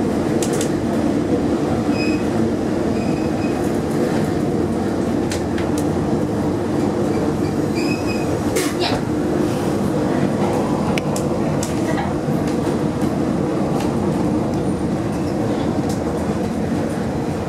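Trieste–Opicina tramcar running on its track, heard from inside the car: a steady rumble of wheels and running gear, with scattered clicks and knocks from the rails and a few brief, faint high squeaks from the wheels.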